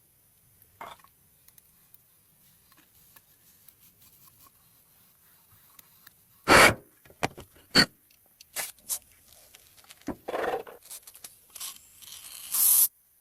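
Irregular scraping and knocking strokes from hands-on work, short and spaced unevenly, the loudest about six and a half seconds in and another near the end.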